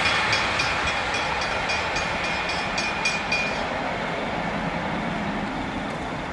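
V/Line VLocity diesel multiple unit running away along the track, its diesel engines working and its wheels ticking quickly over the rails, about four ticks a second, for the first three and a half seconds. The whole sound slowly fades as the train recedes.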